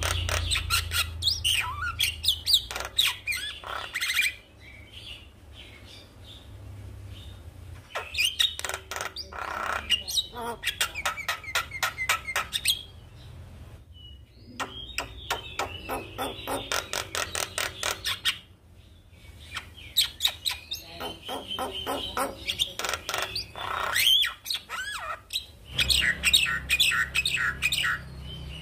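Javan myna singing: phrases of fast, chattering notes mixed with whistles, five bursts with short pauses between them.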